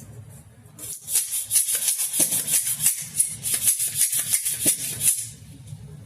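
Rapid, dry, shaker-like rattling, several strokes a second, starting about a second in and stopping about a second before the end.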